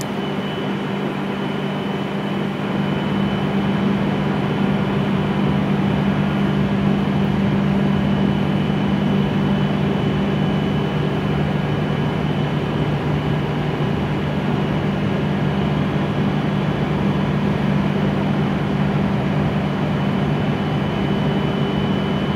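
W7 series Shinkansen train standing at the platform after arriving, its onboard equipment running with a steady low hum and a faint high whine.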